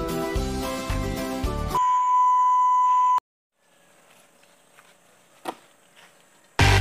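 Background music with a steady beat, cut off about two seconds in by a steady high beep lasting about a second and a half. Then near silence, and loud electronic dance music starts near the end.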